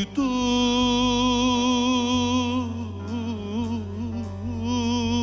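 A singer sustaining a long, wavering note in a Turkish folk song (türkü), with a short run of quick melismatic turns in the middle before settling back onto the held note.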